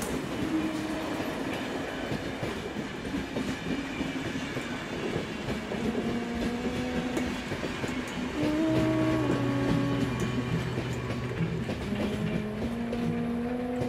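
A train passing on rails, heard as a continuous rumbling, clattering haze. Sustained steady tones join it, strongest from about halfway through for a few seconds.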